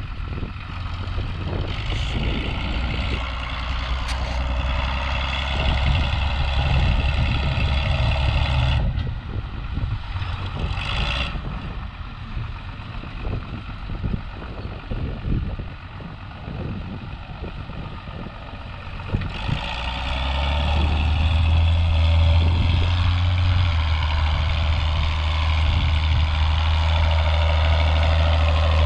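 John Deere tractor's diesel engine running loud and steady. About nine seconds in it drops back to a quieter run with scattered knocks and rattles, then comes up again to a loud steady run about twenty seconds in.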